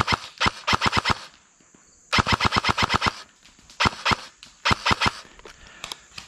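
Airsoft rifle firing full-auto bursts, about eleven shots a second: a long burst about half a second in, another about two seconds in, then two short bursts near four and five seconds.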